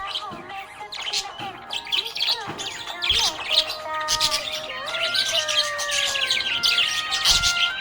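Budgerigar chirping and warbling: a rapid, continuous stream of short chirps, squawks and gliding whistles.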